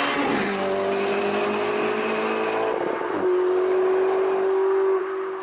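Sports car engine revving under acceleration, its note climbing slowly, then changing abruptly about three seconds in and holding a steady pitch before starting to fade near the end.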